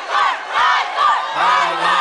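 Crowd cheering with repeated high-pitched shouts, about two a second.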